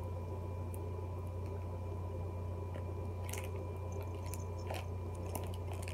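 Baby's wet mouthing and lip-smacking noises, with a few faint clicks, over a steady low electrical hum.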